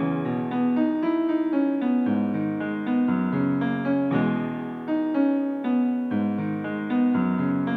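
Background music: a piano (or electric piano) playing a melody of sustained notes with chords underneath.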